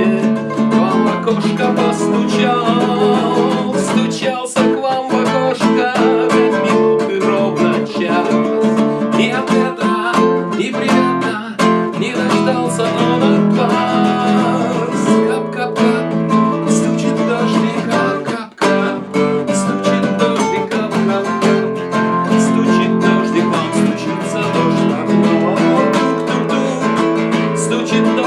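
Acoustic guitar strummed and picked as song accompaniment, playing continuously, with a short drop in loudness about eighteen seconds in.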